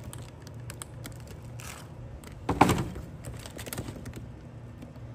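Handling clatter as the camera is moved and set down: a run of light clicks and rattles with one louder knock about two and a half seconds in, over a steady low hum.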